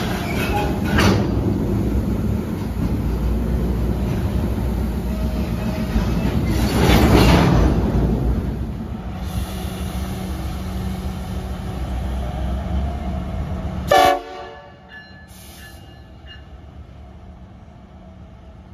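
A diesel train running close by, a heavy low rumble that swells louder about seven seconds in. About fourteen seconds in comes a short horn blast, and the sound then drops abruptly to a quieter background.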